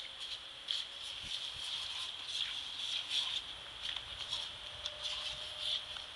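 A thin jet of water spraying from a small nozzle and pattering onto wet paving stones: a steady hiss broken by many irregular small splashes as a dog bites at the stream.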